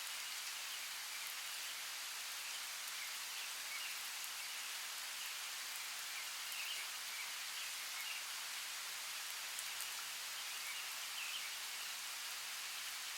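Steady rainforest rain, an even hiss with scattered drips and brief high specks of sound throughout.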